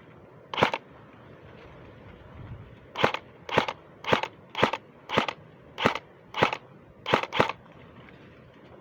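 Airsoft gun firing single shots: one sharp crack, then after a pause a run of nine more at about two a second, the last two close together.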